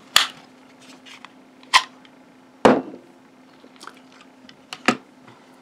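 Four sharp clicks with a few lighter ticks between them, as the CRKT SIWI fixed-blade knife is worked free of its tight, non-adjustable sheath and handled.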